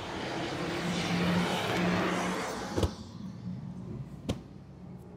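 A motor vehicle passing by, its hum and noise swelling to a peak about two seconds in and then fading. Two sharp knocks follow, about a second and a half apart, as a rolled canvas banner is set down on asphalt.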